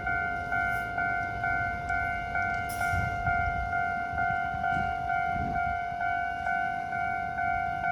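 Japanese level crossing warning bell ringing, a two-tone electronic clang repeating about twice a second, the signal that the crossing is closed for an approaching train. A low rumble of passing traffic runs beneath it.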